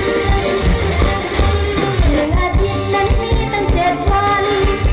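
Loud Isan mor lam band music played over the stage's loudspeakers, with a steady pulsing beat and a voice singing from about two seconds in.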